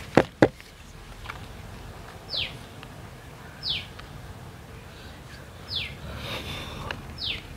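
Two sharp clicks right at the start. Then a bird calls four times, each a short whistle sweeping downward, repeating every one and a half to two seconds.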